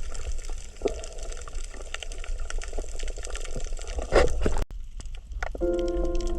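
Underwater sound of a coral reef: a dense, fine crackle of tiny clicks over a low rumble, which the uploader takes for the coral's breathing. A louder rush of water comes about four seconds in, and soft music with held notes comes in near the end.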